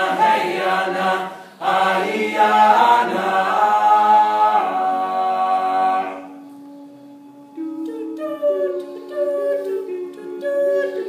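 Men's a cappella group singing in close harmony, with a brief break about a second and a half in. About six seconds in, the full chord drops away to a single low held note. A second or so later, a higher vocal line comes in with a stepping melody over it.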